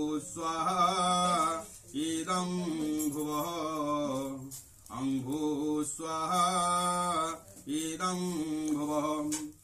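A man's voice chanting Hindu mantras in short melodic phrases, with brief pauses for breath between them and the same phrase coming round again.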